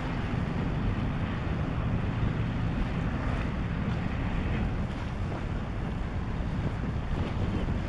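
Wind buffeting the microphone, a steady low rumbling rush with no clear engine note.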